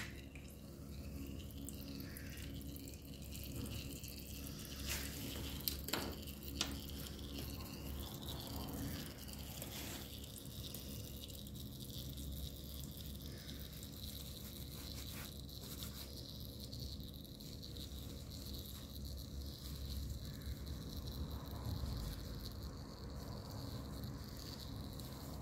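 Old engine oil trickling from a motorcycle's drain holes into a drain pan of oil, a faint steady pour. A few light clicks come about five to seven seconds in.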